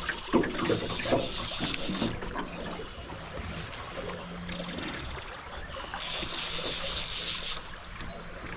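River current running and splashing around the boat, with two stretches of louder high hiss.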